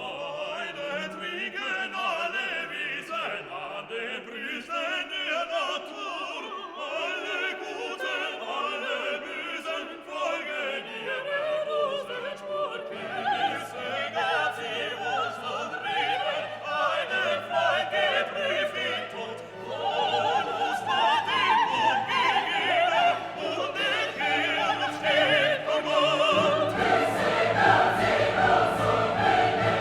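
Background classical music: operatic singing with choir and orchestra, growing fuller and louder over the last few seconds.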